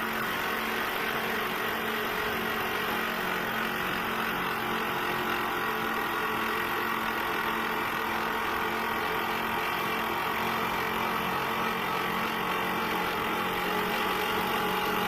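Machinery running steadily at constant speed: a continuous mechanical drone with a steady low hum, typical of the engine or hydraulic power unit that drives a hydraulic rock drill.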